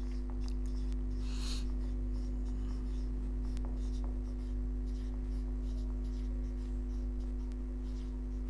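Marker pen writing on a whiteboard: many short, irregular strokes as letters are written, over a steady low hum.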